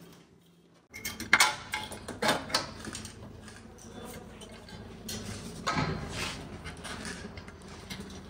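Metal parts and hand tools clinking and clattering during motorcycle work. There is a run of sharp knocks in the first couple of seconds and more clanks a bit past halfway.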